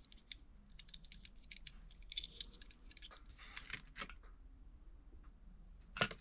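Small diecast model cars being handled, with an irregular string of light clicks and rattles and one louder click near the end.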